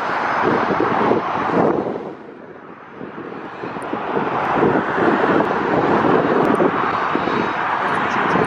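Jet engines of a Boeing 737-300 freighter (CFM56-3 turbofans) running as the aircraft rolls along the runway after landing. The engine noise dips about two seconds in, then builds again.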